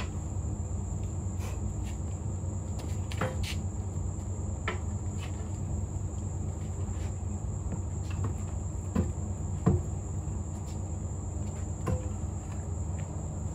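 Steady chirring of crickets with a low steady hum beneath, broken by a handful of sharp metal clinks and knocks from tire irons prying a tire onto its rim. The loudest two come together about nine to ten seconds in.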